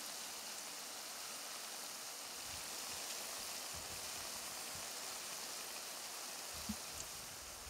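Ciuriși (Romanian fried-dough pastries) deep-frying in hot oil in a pan: a steady sizzling hiss, with one brief pop near the end.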